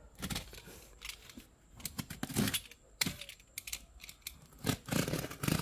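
Utility knife slitting the packing tape on a cardboard carton: irregular scratchy cutting strokes with small clicks and knocks from the box being handled.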